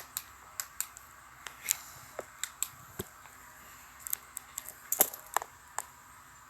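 Irregular sharp clicks and crackles, loudest and most crowded about five seconds in, over a faint steady hiss.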